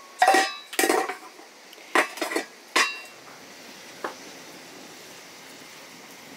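Metal kitchenware clattering: a handful of sharp, ringing clanks of pots, plates and utensils in the first three seconds, then one lighter tap about four seconds in.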